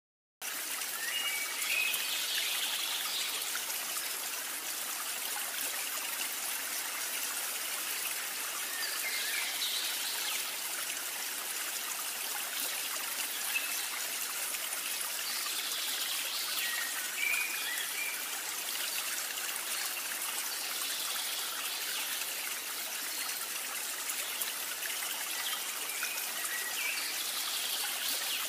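Steady trickling of stream water, with short high chirps recurring every seven or eight seconds.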